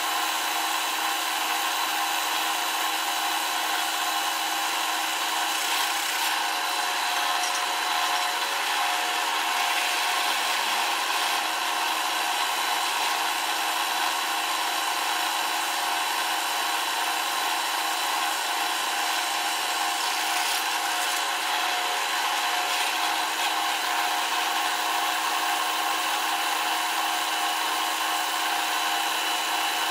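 Drill press running steadily as its twist bit bores through a metal plate, cutting off curled metal shavings.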